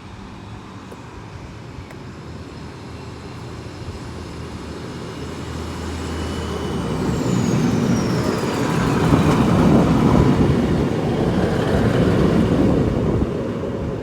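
A train approaching and running past, its rumble growing steadily louder over the first nine seconds and then staying loud. About seven seconds in, a high squeal slides down in pitch, and thin steady whining tones sit above the rumble.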